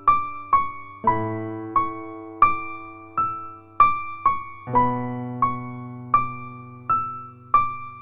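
Background music: a slow, gentle keyboard piece of single struck notes, roughly one every 0.7 seconds, over held low chords that change twice.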